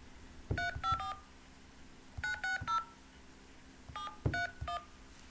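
Telephone keypad touch-tones (DTMF) as a phone number is keyed in at an automated system's prompt. Nine short beeps come in three quick groups of three, each with a soft tap of the key press.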